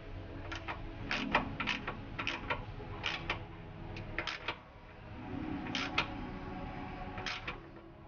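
Ratchet wrench clicking in short runs of a few clicks, with a longer pause about five seconds in, as a steering-rack mounting bolt is tightened.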